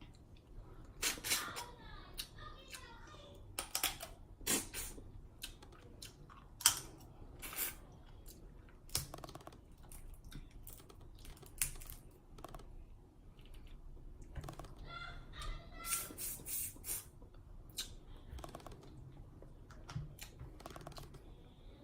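Close-miked messy eating of seafood: wet smacking and chewing with many irregular sharp clicks and cracks, busiest about a second in and again in the last third.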